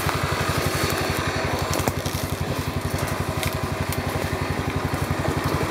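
ATV engine idling with a steady, rapid low pulse, with a few faint clicks over it.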